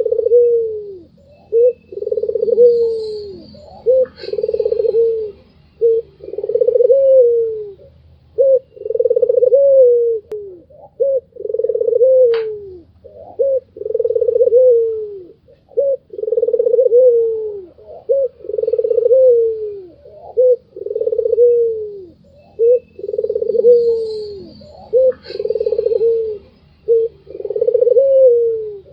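White (albino) ringneck dove giving its repeated rolling 'laughing' coo: a low coo that falls in pitch, about every two seconds, with short quick notes in between.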